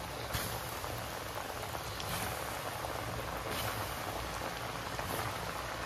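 Hot oil sizzling and bubbling steadily in a wok as chicken popcorn pieces deep-fry.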